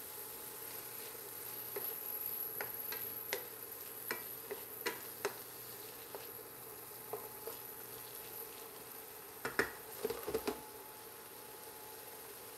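Wooden spoon stirring diced vegetables sautéing in a nonstick frying pan, over a soft, steady sizzle. The spoon taps lightly against the pan several times, and near the end there is a short cluster of louder knocks.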